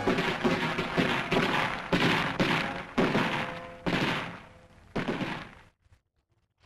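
Small-arms gunfire from an infantry patrol: a run of shots, about two a second, each with a long echoing tail. The shots thin out and stop about five and a half seconds in.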